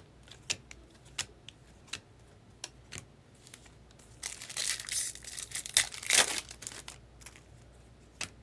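Foil card pack wrapper crinkling and tearing open for about two seconds around the middle, between scattered light clicks of cards and packaging being handled.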